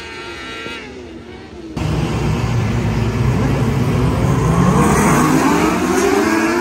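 Race car engines heard at a distance, then about two seconds in a sudden jump to loud 600cc micro sprint engines racing on a dirt oval close by. The engine pitch climbs as the cars accelerate.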